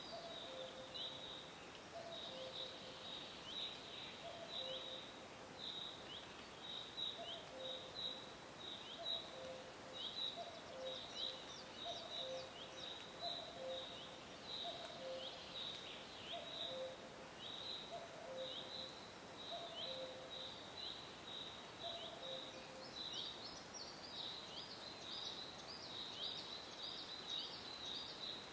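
A cuckoo repeating its falling two-note "cuck-oo" call about once a second, stopping about 22 seconds in. Behind it, small birds chirp rapidly and high-pitched, getting busier near the end.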